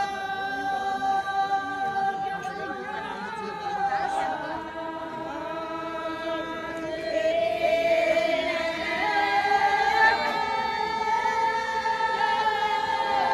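A group of voices singing together without instruments, holding long drawn-out notes.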